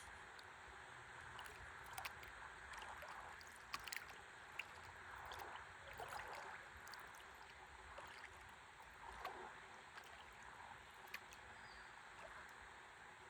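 Faint river water lapping and trickling against a stand-up paddleboard, with a few soft swells and several light clicks or taps.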